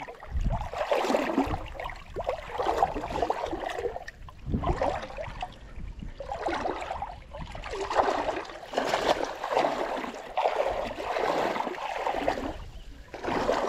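Water sloshing and gurgling at the side of a boat in irregular surges, with two low thumps, one near the start and one about four and a half seconds in.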